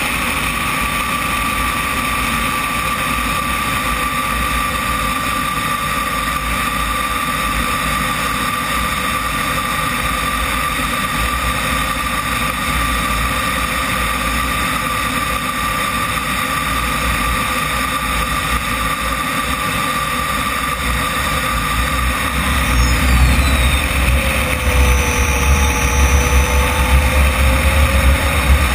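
Onboard sound of a Comp-ARF Flash RC jet's turbine: a steady high whine over wind rush, dropping in pitch about 23 seconds in as the engine is throttled back on the descent to land. Wind rumble on the microphone grows louder toward the end.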